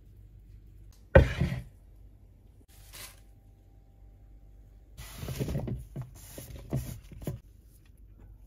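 Something set down on a wooden kitchen countertop with one sharp knock about a second in, then a run of shorter knocks and scrapes over a couple of seconds near the end.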